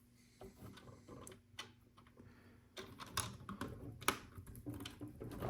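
Small plastic LEGO pieces clicking and tapping as they are handled and pressed into place, in a quick irregular patter of light clicks.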